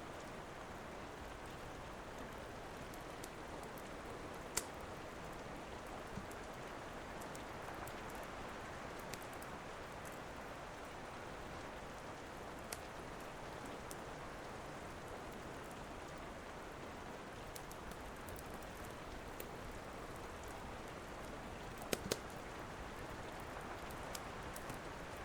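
Steady rain, a continuous even hiss, with a fireplace crackling underneath: a few scattered sharp pops, two close together near the end.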